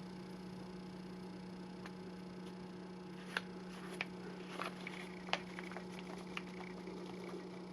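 Faint handling of paper craft pieces: a few light clicks and taps, spaced about a second apart, over a low steady hum.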